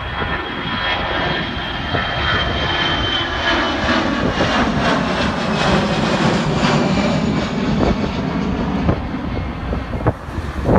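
Twin-engine narrow-body jet airliner passing low overhead: a jet-engine rush that swells to its loudest about halfway through and then fades, with a high engine whine that slowly drops in pitch as it goes by.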